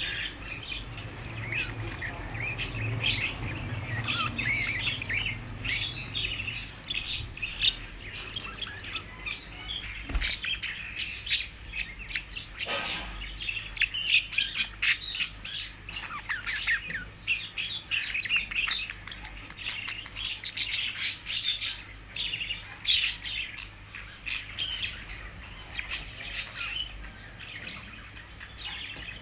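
Budgerigars chirping and chattering in a dense run of short, quick calls, busier after about ten seconds.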